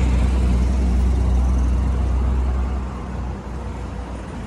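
A motor vehicle passing close by on the road: a loud low engine and road rumble that is strongest at first and fades away after about three seconds.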